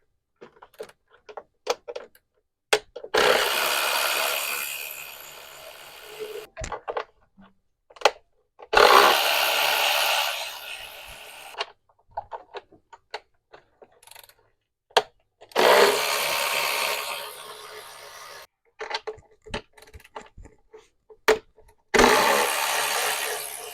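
A cordless power tool, such as a drill or electric ratchet, runs four times in spells of about three seconds, each starting strong and trailing off. Short clicks and clanks of tools and parts fall between the spells. The tool is driving out fasteners while the intake manifold is taken off.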